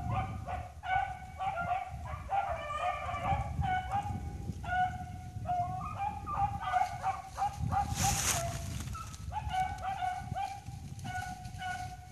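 Pack of rabbit-hunting hounds baying in chase on a cottontail's trail, many overlapping calls, some short and some drawn out. A brief hiss comes about eight seconds in.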